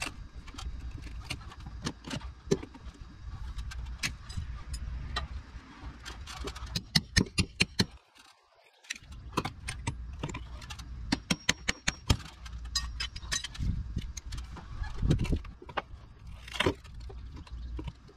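Metal hand tools clinking and knocking in quick, irregular strikes over a low rumble, the sound of prying out a rotted rim joist. The sound drops out briefly about eight seconds in.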